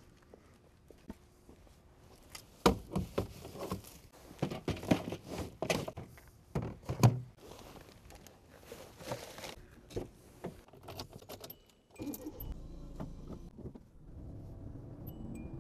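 Gear being loaded into the trunk of a small car: a run of clatters, clinks and thumps. About twelve seconds in, these give way to the car's steady low running hum, which grows louder near the end.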